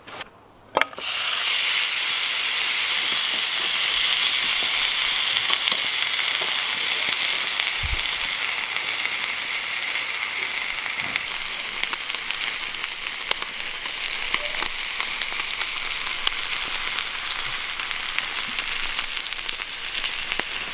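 A thick marbled steak laid into a hot, lightly oiled steel frying pan over a wood fire, sizzling loudly from about a second in, the sizzle easing slightly as it goes on.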